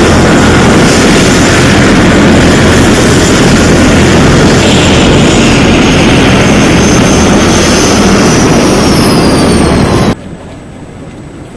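Helicopter's rotor and turbine noise at close range, very loud and steady, with a high whine that slowly falls in pitch. It cuts off abruptly about ten seconds in, leaving a much quieter background.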